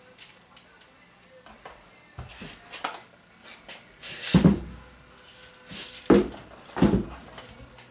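Steel brake spindle parts being handled and set down on a workbench: a handful of separate clunks and knocks, the loudest about halfway through and two more near the end.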